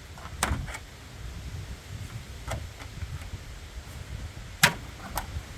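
A siding panel's seam being worked with a pry tool: a handful of sharp clicks and snaps as the locked edge is pried at, the loudest snap near the end. A low rumble runs underneath.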